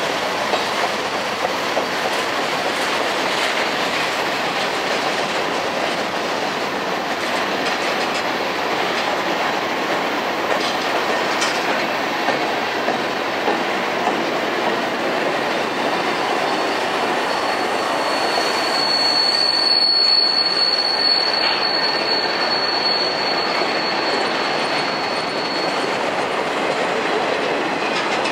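Freight cars rolling past close by: a steady rumble of steel wheels on rail with clicks over the rail joints. About two-thirds of the way through, a high, steady wheel squeal sets in and lasts some seven seconds.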